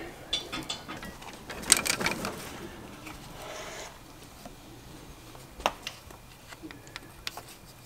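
Scattered light clicks and handling noises from gloved hands refitting a wheel speed sensor and its wiring onto a car's front steering knuckle, with a small cluster of clicks about two seconds in and one sharper click a little past halfway.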